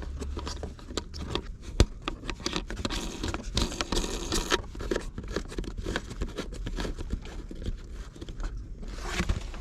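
Small plastic clicks, scrapes and rattles of a USB charger socket being handled and screwed into a plastic trim panel, with one sharper click about two seconds in.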